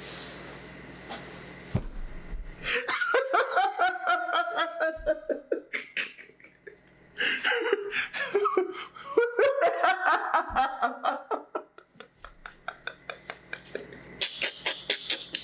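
A man laughing hard: two long runs of rapid, pulsing laughs, then quieter, breathier laughs near the end.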